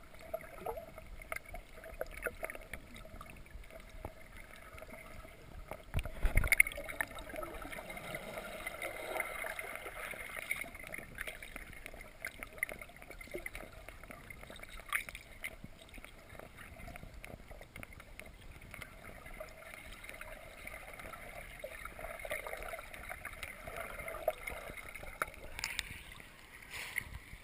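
Muffled underwater sound through a GoPro's waterproof housing held under the surface of a spring: a steady watery hiss, broken by a single loud knock about six seconds in. Near the end the camera breaks the surface with a short splash of water.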